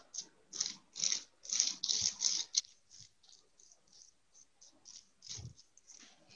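Paintbrush stroking and dabbing acrylic paint onto bubble wrap: a run of short, soft scratchy strokes, about two a second. They are loudest in the first two and a half seconds, then lighter.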